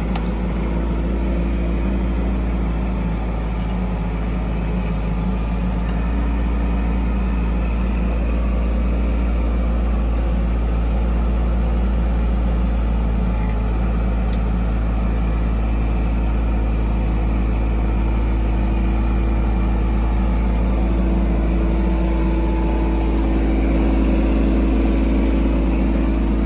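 Mini excavator's diesel engine running steadily, a deep hum, growing a little louder near the end as the machine moves closer.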